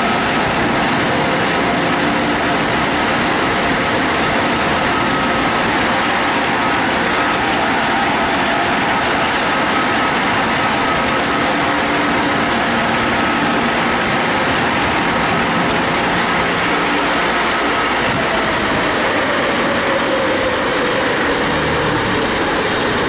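Car wash dryer blowers running, a loud, steady rush of air with a thin whine. The whine fades out well into the run, and near the end a lower tone slides down in pitch.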